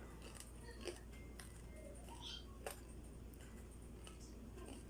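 Quiet chewing of a crispy fried turon, with a couple of faint crunches.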